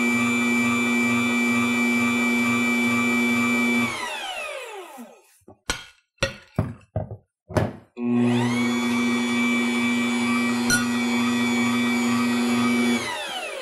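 Bear dough maker's motor kneading bread dough in its intermittent cycle. The motor runs with a steady whine for about four seconds, then winds down with falling pitch and stops. A few short bursts come during the pause. About eight seconds in it starts again, runs steadily and winds down near the end.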